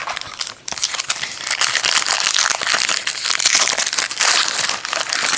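A trading-card pack wrapper crinkling and crackling as it is torn open and handled, a dense rustle that starts about a second in.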